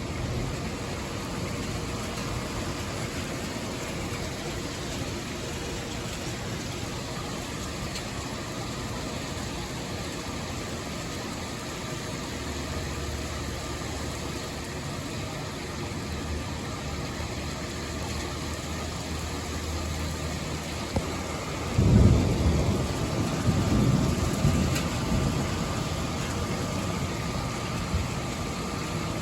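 Steady rain and wind of a severe thunderstorm, then a loud rumble of thunder starting about three-quarters of the way through and fading over a few seconds.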